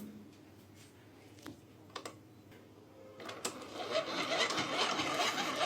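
Hand-cranked insulation resistance tester (megger) being wound up: a few light clicks, then from about three seconds in a steady whirring rattle from its crank-driven generator. It is testing the neutral wire's insulation to ground.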